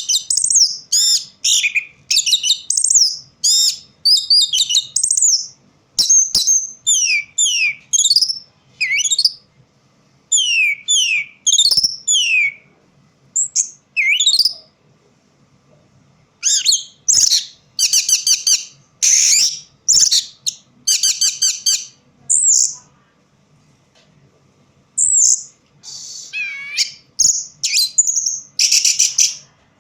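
Orange-headed thrush singing a varied song of quick, clear falling whistles, delivered in short bursts with brief pauses between them. About the middle it breaks into runs of fast repeated notes.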